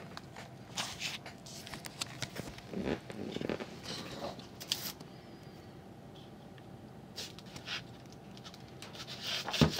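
Scattered light clicks, taps and rustles of hands handling plastic parts while a circuit board assembly is pushed into place in a hand dryer motor housing, with a louder bump near the end.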